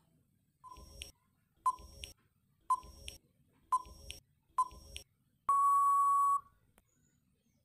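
Quiz countdown timer sound effect: five short beeps about a second apart, then one long steady beep as time runs out.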